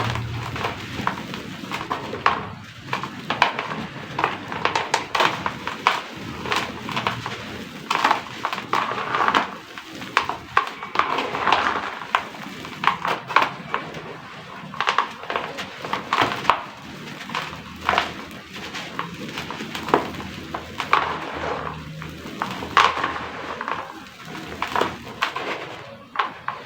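Dry, crispy sand-cement clay chunks crumbling, with many crisp crackles and snaps at uneven intervals over a steady crumbly rustle.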